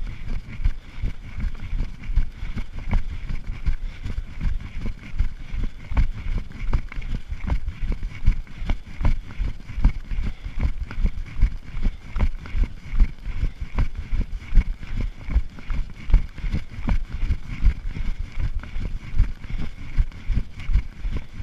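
Off-road vehicle driving fast over a rocky dirt trail: an uneven low rumble broken by constant jolts, knocks and rattles from the rough ground, with a faint steady high hum underneath.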